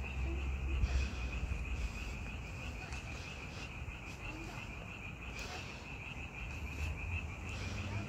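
A dense chorus of frogs calling at night, merging into one steady high-pitched trill.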